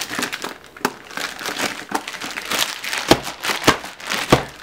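Plastic poly mailer bag crinkling and rustling as it is handled, with three louder thumps in the second half.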